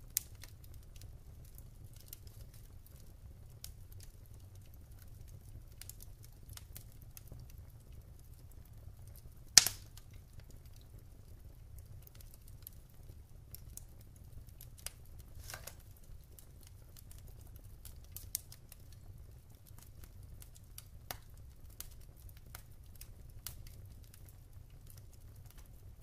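Logs burning in a fireplace, crackling with scattered sharp pops over a steady low rumble; the loudest pop comes about ten seconds in.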